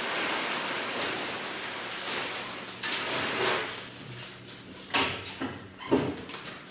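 Wood pellets pouring from a bag into a pellet grill's hopper: a continuous rattling rush that fades out about three seconds in. A few short knocks and bag handling follow.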